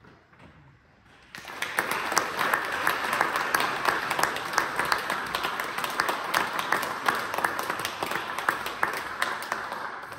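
Audience applauding after a choral piece: many hands clapping, starting about a second in, holding steady, then thinning and fading out near the end.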